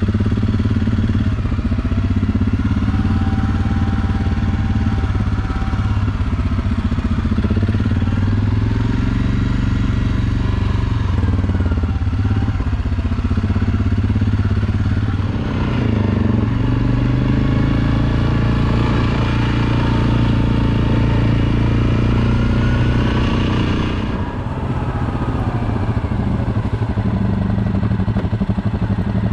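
ATV engines running as the quads are ridden along a leaf-covered dirt trail, the engine note rising and falling with the throttle.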